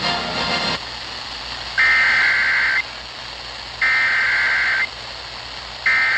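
Emergency Alert System SAME header: three one-second bursts of shrill digital data tones about two seconds apart, with the last still sounding at the end. They open an alert that here carries a tornado warning. Broadcast music cuts off under a second in, before the first burst.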